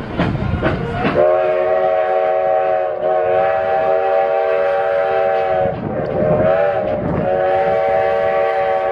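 Steam locomotive's chime whistle blowing a chord of several notes in two long blasts with a short break between them, after a second of rail clatter from the open car's wheels.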